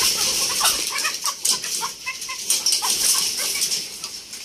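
Hens clucking in a wire-mesh coop, with rustling and scattered short clicks and knocks over them.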